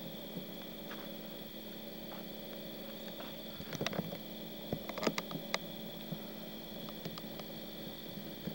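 Steady electrical hum over a faint hiss, with a few sharp clicks and knocks about four seconds in and again around five seconds in.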